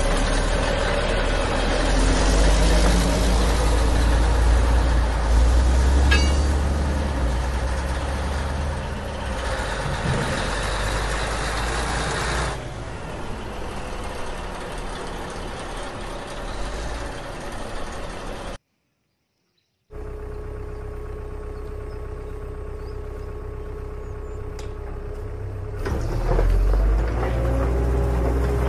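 Heavy vehicle engine running, a sound track laid over the hand-moved toys, with a deep steady rumble. It cuts off abruptly about two-thirds of the way in. After a second's silence it comes back quieter as a steady hum, and swells again near the end.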